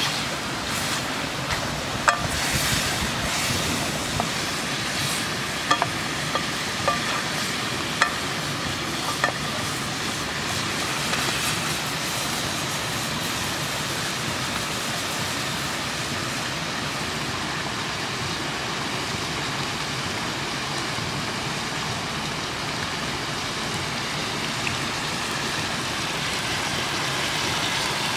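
Buffalo meat and onions sizzling steadily in a metal pot over a wood fire, stirred with a wooden spatula at first. A few sharp clicks in the first ten seconds or so.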